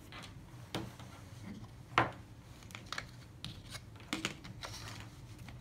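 Handling noise on a desktop: scattered light clicks and knocks of plastic gear and cable being moved, with one sharper knock about two seconds in, as a dome security camera and network cable are brought onto the desk.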